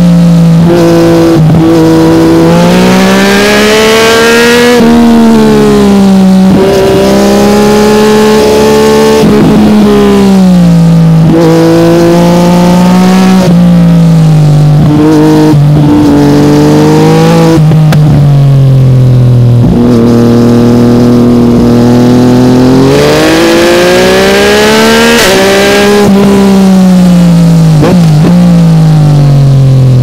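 Yamaha MT-09 three-cylinder engine through an Akrapovic carbon exhaust, heard on board while riding. The engine note climbs under throttle, drops abruptly at each quick upshift, and falls away in long glides as the bike slows, over and over.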